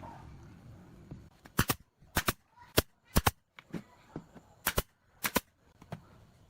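Nails being driven into pallet wood: a string of sharp cracks, several in quick pairs, about one every half second, starting about a second and a half in.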